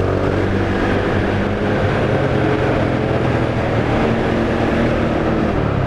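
Honda Tiger Revo's single-cylinder four-stroke engine running steadily as the motorcycle rides along at an even pace.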